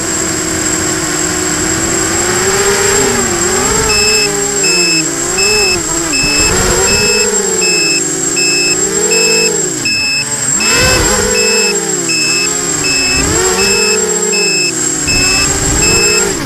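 Electric motors and propellers of an FPV hexacopter whining, heard from its onboard camera, the pitch rising and falling with the throttle. From about four seconds in, a high electronic beep repeats about twice a second over it.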